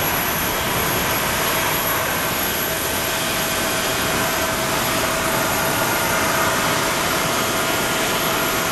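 Airbus A340-600's four Rolls-Royce Trent 500 jet engines at takeoff thrust as the airliner lifts off and climbs away: a steady roar with a thin steady whine running through it.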